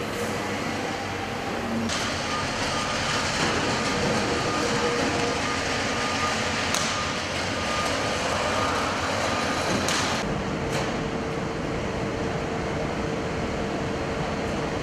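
Steady factory-floor machinery noise with a faint constant hum, broken by a few sharp clicks and knocks, and changing abruptly a few times.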